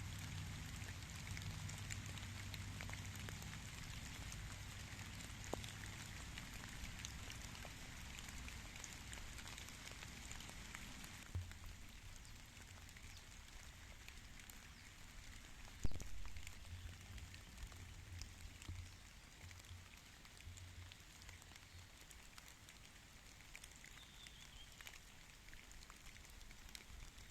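Light rain falling: a steady patter of many small drops ticking, with one sharper knock about two-thirds of the way through.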